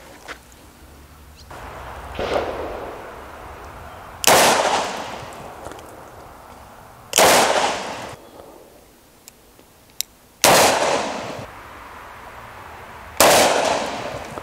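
Smith & Wesson 629-6 revolver firing .44 Magnum: four loud shots about three seconds apart, each with a short ringing echo, and a softer bang about two seconds in.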